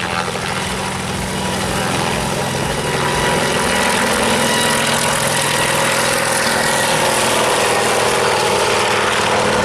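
Aircraft engine running steadily, a little louder from about three seconds in.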